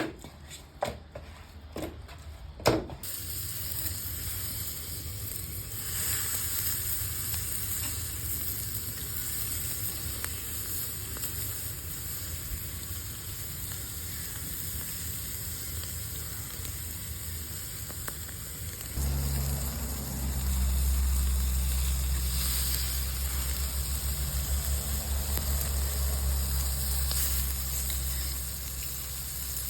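Chicken sizzling on a wire grill over a wood fire, a steady hiss with a few sharp pops at the start. A low steady rumble joins in a little past the middle.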